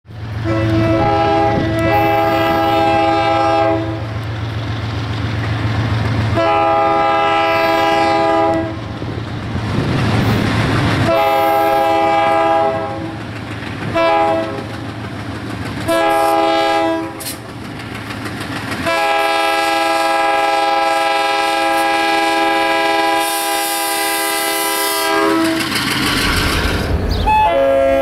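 Ferromex diesel locomotive air horn sounding a series of chord blasts, several tones together, most a few seconds long and the last held about six seconds, with a low engine rumble under the first few. A different-sounding horn starts just before the end.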